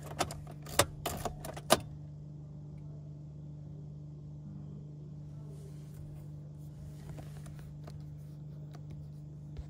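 A handful of sharp clicks and knocks in the first two seconds inside a car, then only the car's steady low hum.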